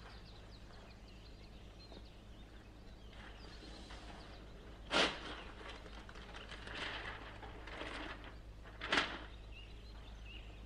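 Quiet outdoor ambience with faint bird chirps over a low steady hum. Two short sharp noises break it, about five and nine seconds in.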